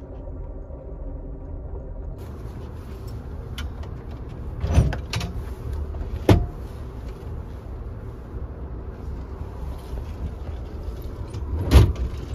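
Amtrak Superliner sleeping car running with a steady low rumble, with several knocks and clunks, three of them loud, as the attendant folds the roomette seats down and makes up the bed.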